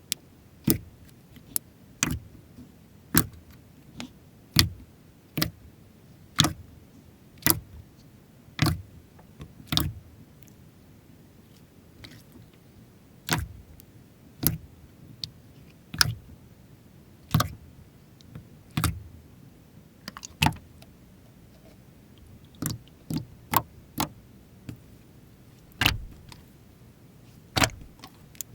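Slime being pressed and poked by hand, giving sharp clicking pops about once a second, with a short pause near the middle.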